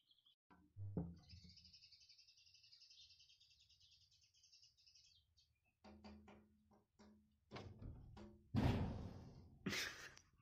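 A small bird's rapid, high chirping trill for about four seconds, then a run of sharp knocks and thumps, ending in two louder rustling bursts near the end.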